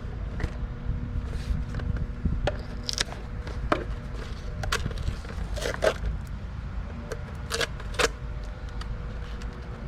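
Scattered clicks, clinks and light scrapes of hands taking apart a car side-mirror assembly, over a steady low rumble. The sharpest clicks come about three seconds in and near the end.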